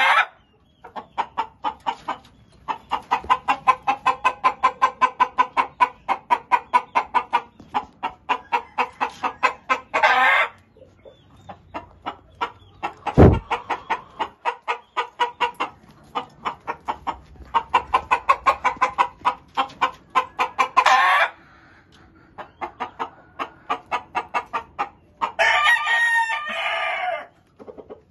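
Gamefowl chickens clucking in long rapid runs of about four to five clucks a second, each run ending in a longer, louder drawn-out call. A single sudden loud thump comes about thirteen seconds in.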